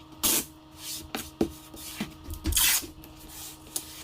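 Tape being pulled off the roll in two short rasping tears, with a few light taps between them as it is laid on the laminate countertop.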